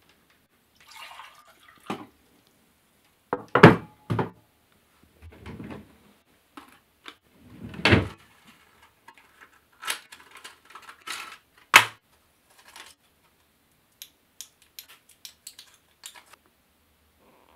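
Scattered knocks and clicks with a few louder thuds about four, eight and twelve seconds in, and a quick run of small ticks near the end.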